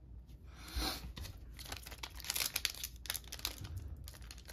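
Foil trading-card booster pack wrapper crinkling in the hands as it is gripped at the top: a brief rustle about a second in, then a rapid run of small crackles.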